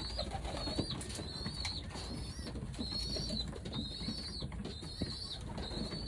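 Pigeons in a loft cooing softly, with a high, thin call repeated about every three-quarters of a second.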